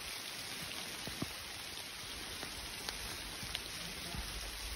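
Steady rain falling, with a few faint taps scattered through it.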